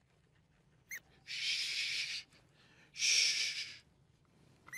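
Yellow rubber chicken squeezed twice, letting out two breathy wheezes of air, each just under a second long.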